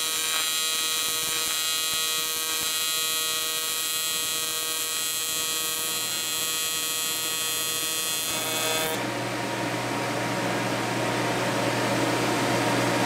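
AC TIG welding arc on 7075 aluminium buzzing steadily as a bead is laid with filler rod, fed by a PrimeWeld TIG welder. The arc cuts off about nine seconds in, leaving the steady whoosh of the welder's cooling fans.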